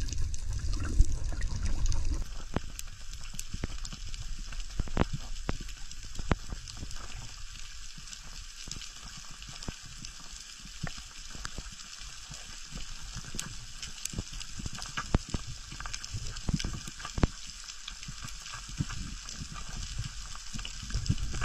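Underwater ambience over a rocky reef: a steady hiss of fine crackling with scattered sharp clicks, and a low rush of moving water in the first couple of seconds.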